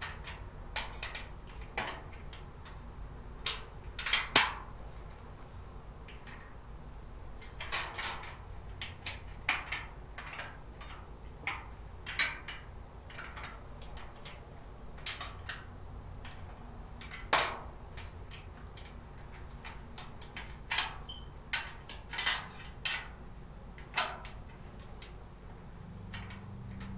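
Irregular clicks, clinks and knocks of storage-cart parts and small screws being handled and fitted during assembly, the loudest knock about four seconds in.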